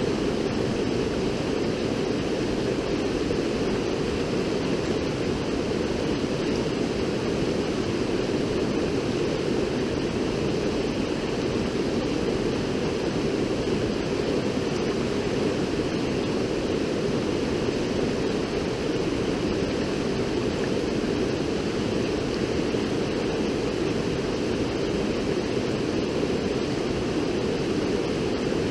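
River water rushing: a steady, even noise that never lets up, heaviest in the low-middle range.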